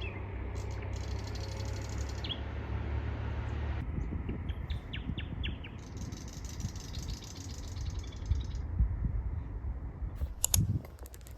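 Outdoor ambience: a low rumble of wind on the microphone with a few short bird chirps about five seconds in, and a sharp knock near the end.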